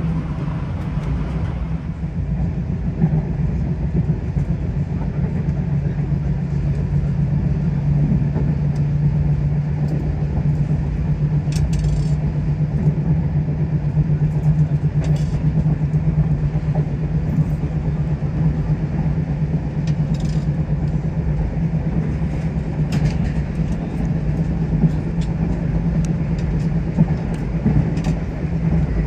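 A moving vehicle running with a steady low hum and rumble, with a few faint clicks or rattles now and then.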